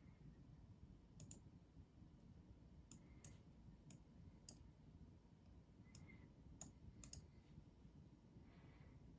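Faint computer mouse clicks, about a dozen at irregular intervals, over near-silent room tone.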